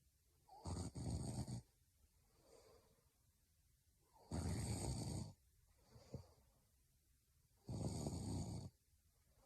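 A young woman snoring in her sleep: three snores, each about a second long, about three and a half seconds apart, with softer breaths between them.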